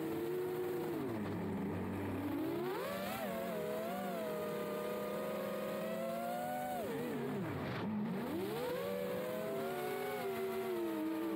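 7-inch FPV quadcopter's four brushless motors and propellers whining, heard from the drone's onboard camera. The pitch rises and falls with the throttle: it sags about a second in, climbs sharply near three seconds, holds, dips deeply around eight seconds, then climbs again.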